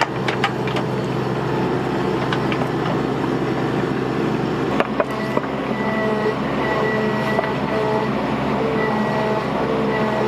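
Bobcat mini excavator's diesel engine running steadily under load while digging clay. A few sharp clanks come near the start and again about halfway, and from about halfway a high whine comes and goes.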